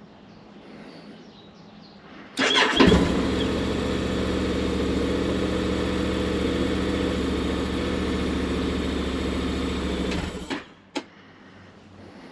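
Honda X-ADV's parallel-twin engine starting on the electric starter with a brief crank, catching about two seconds in and idling steadily for about eight seconds before it is switched off. A single sharp click follows shortly after.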